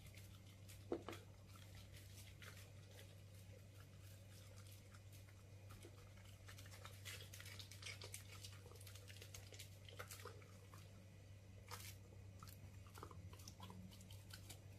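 A dog chewing and crunching food: faint, quick clicking bites all through, busiest from about seven to twelve seconds in, over a steady low hum.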